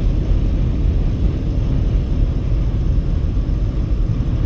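Steady low rumble of a car travelling at highway speed, heard from inside the cabin: tyre and wind noise with no change through the stretch.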